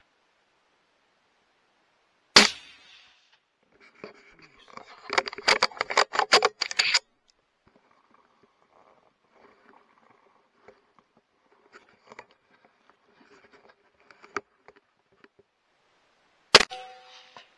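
Two suppressed .223 bolt-action rifle shots, each a sharp crack with a short tail: one about two seconds in, the other near the end. Between them come a few seconds of dense clicking and rattling, then faint scattered ticks.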